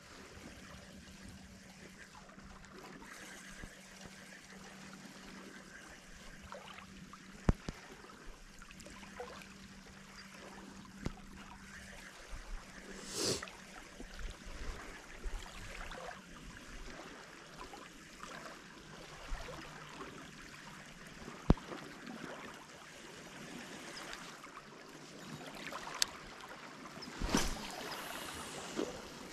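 Faint water lapping and trickling at a lake shore, with a few sharp clicks scattered through and a brief louder swish about thirteen seconds in and again near the end.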